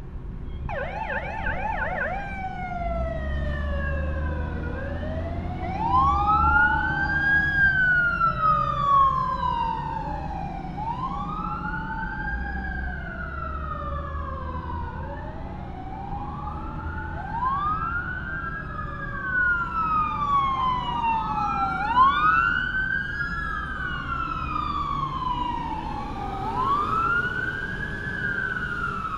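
Fire truck sirens: a brief fast yelp near the start, then two or more sirens wailing, rising and falling slowly and overlapping out of step, over the low rumble of the trucks' engines as they pull out.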